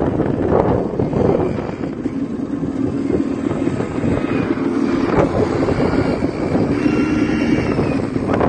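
Quad bike engines running on sand dunes, a steady drone with rough noise beneath it.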